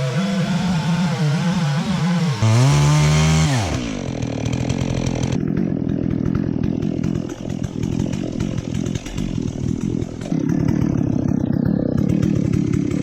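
Holzfforma G660 two-stroke chainsaw in a chainsaw mill, running under load as it rips along a log, its note wavering. About two and a half seconds in it revs up briefly and falls away, then runs on at a lower, rougher note.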